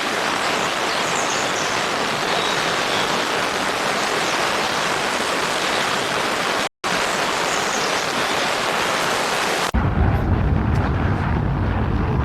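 A steady, even rushing hiss, cut off for a moment about seven seconds in. About ten seconds in it switches abruptly to low, gusty wind buffeting the microphone.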